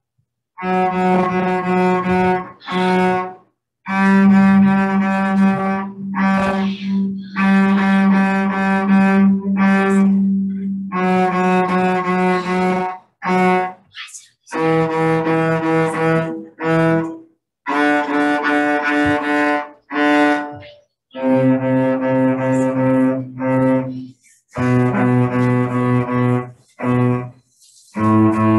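Cello bowed in a slow run of separate sustained notes, each a second or two long with short breaks between them, stepping lower toward the end, as in a practice scale.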